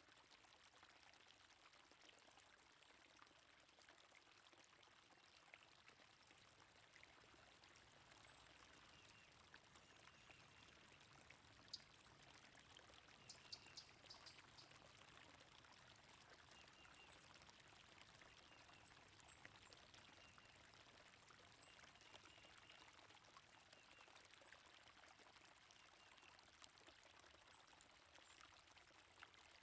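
Faint, steady flowing stream water, with scattered faint high bird chirps and a brief cluster of sharp ticks about halfway through.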